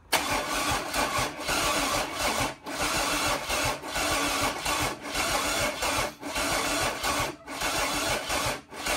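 Mercedes OM603 turbo diesel inline-six being cranked over by its starter, cutting in sharply and turning steadily without catching. The engine does not fire because its glow plugs are not working.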